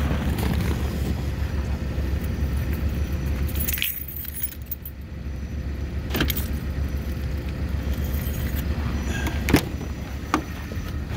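Pickup truck heard from inside the cab: a steady low engine and road rumble with a light metallic jingling and a few sharp clicks. The rumble drops about four seconds in, then builds back.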